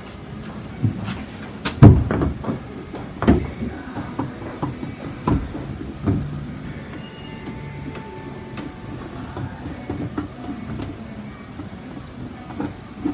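Scattered knocks, clunks and rustling of someone moving about and handling objects, the loudest knock about two seconds in, with fewer and lighter ones later.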